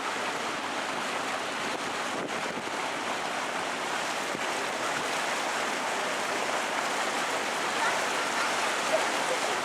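Steady rushing noise aboard a moving canal tour boat: water washing along the hull mixed with wind, with no distinct engine note or sudden sounds.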